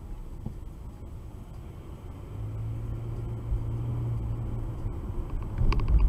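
Car engine and road rumble heard from inside a moving car through a dashcam microphone, with a steady low hum for a couple of seconds mid-way and a few sharp clicks near the end.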